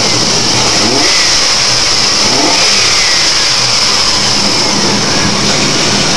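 Chevrolet S10 pickup's engine running under a steady, loud hiss, with the pitch rising briefly twice in the first few seconds.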